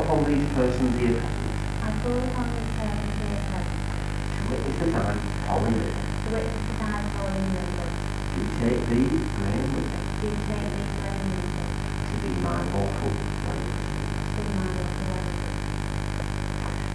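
Steady low electrical hum runs under the whole stretch, with faint, intermittent pitched sounds over it now and then.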